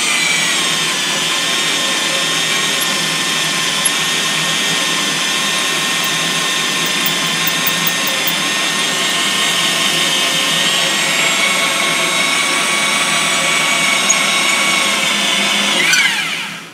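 Handheld electric drill running steadily under load, driving a carbide-tipped core drill through a newly installed valve guide in a cylinder head. The motor winds down with a falling whine near the end as the hole is finished.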